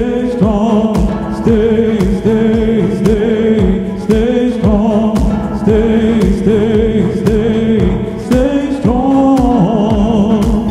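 A song playing with a steady beat and a wordless sung line: held notes that slide in pitch, with a wavering, vibrato note about nine seconds in.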